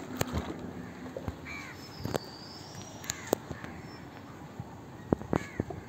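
Crows cawing a few times, short harsh calls, with sharp taps scattered through, several close together near the end.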